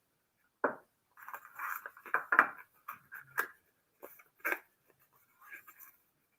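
Packaging being handled and opened by hand: a string of short, irregular rustles, scrapes and taps.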